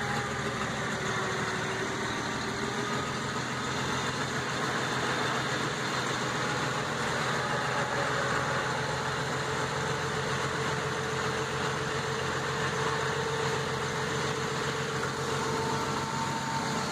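A vintage 1920s Pirsch fire engine's engine idling steadily.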